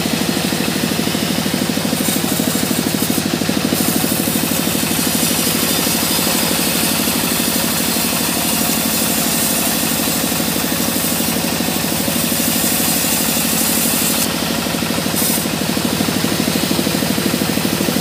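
Vertical band saw ripping a mahogany beam: steady, loud machine noise with a fast even pulsing, the blade cutting through the wood throughout.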